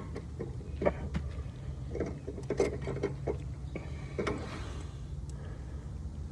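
Light metallic clicks and knocks of the mower's belt-tension bolt and spring being handled and fitted, a handful of irregular taps over a low steady rumble.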